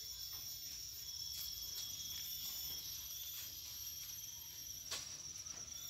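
Many farmed crickets chirping together in their rearing boxes, a continuous high-pitched trill, with a single sharp click about five seconds in.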